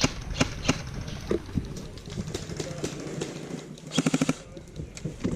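An airsoft gun fires a short rapid burst about four seconds in. Scattered sharp clicks come before it.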